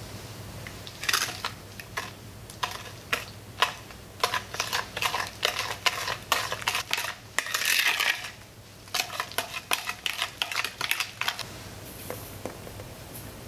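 Metal balloon whisk beating whole egg into a soft batter in a glass bowl: the wires rapidly click and scrape against the glass in quick runs of strokes with short pauses. The whisking stops about two seconds before the end.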